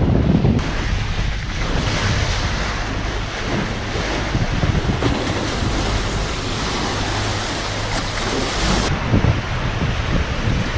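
Wind buffeting the microphone over the rush of sea water and waves along a sailing catamaran's hulls at sea, with a steady low rumble underneath.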